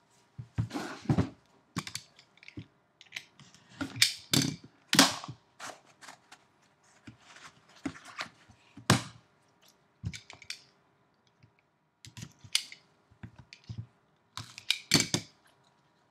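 Cardboard trading-card boxes being opened and handled: the box lid lifted off and the small inner card box pulled out and turned over. Irregular sharp taps, knocks and scrapes of cardboard, with the loudest clusters about four to five seconds in, around nine seconds and near the end.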